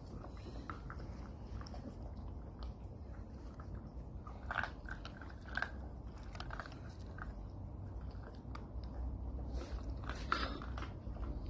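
Tibetan mastiff mother and puppies play-fighting: scuffling, mouthing and play-biting sounds with scattered clicks and a few brief sharper noises, the loudest about ten seconds in.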